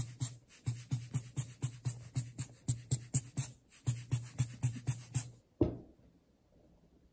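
A rubber bulb air blower is squeezed rapidly, about four puffs a second, to push wet alcohol ink across glossy paper. The puffs break off briefly about three and a half seconds in, then stop a little after five seconds with a single knock.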